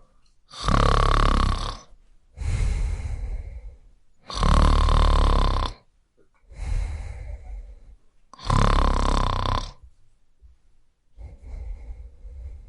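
A person snoring: three loud rattling snores about four seconds apart, each followed by a softer, breathy sound, with a quieter snore near the end.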